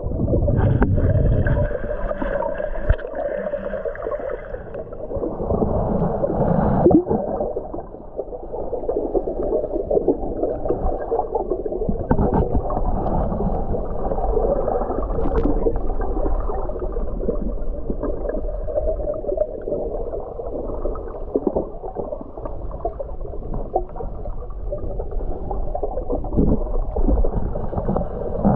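Muffled underwater sound around a camera held below the surface: steady gurgling and bubbly crackle of water moving past it, dull and lacking any high tones.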